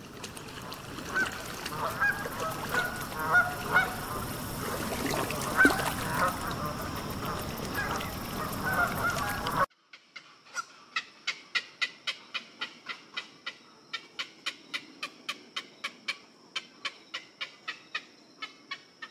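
Waterfowl honking, many short calls over a busy, noisy background, cut off suddenly about ten seconds in. Then a quick, even series of sharp ticks, about three or four a second, with a faint steady high tone beneath.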